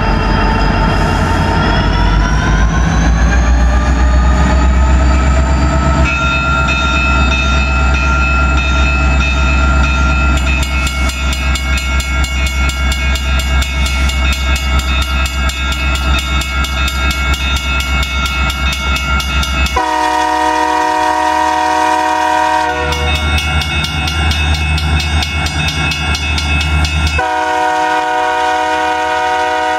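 Diesel freight locomotives sounding a multi-chime air horn for a grade crossing: a long blast that rises in pitch over its first few seconds and then holds, then two more blasts near the end, over the engines' low rumble. From about a third of the way in, a rapid, even ringing runs under it, like a crossing bell.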